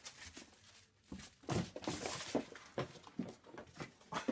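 A ferret playing in and around its wire cage: a run of short, soft knocks and rustles.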